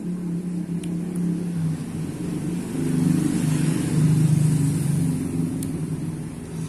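A motor vehicle's engine passing by: a low drone that swells to its loudest a few seconds in, then fades.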